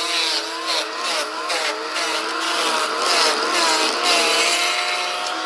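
An engine running under load, its pitch wobbling up and down several times a second, then holding steadier about four seconds in.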